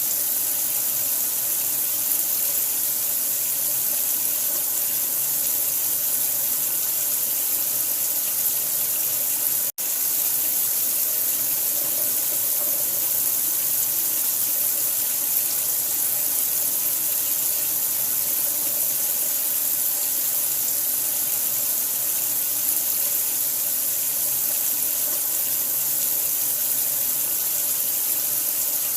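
Steady rush of running water, a constant hiss strongest in the high end. It cuts out for an instant about ten seconds in, then carries on unchanged.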